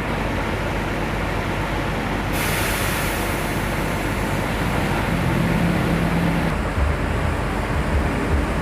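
Bus running, with a steady rumble and a stretch of air hissing from a little over two seconds in until about six and a half seconds. There are a few low thumps near the end.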